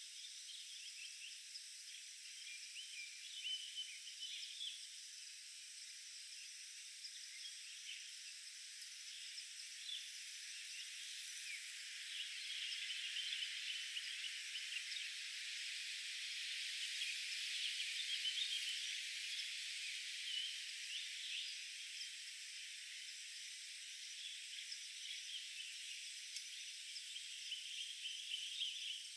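Forest ambience: a steady high-pitched insect drone with many short bird and insect chirps, swelling in the middle and then easing back.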